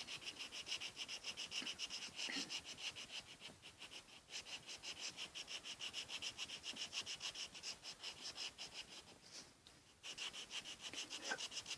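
Colored pencil shading back and forth on paper, a fast, even scratching of about five or six strokes a second, faint. It breaks off briefly near the end, then resumes.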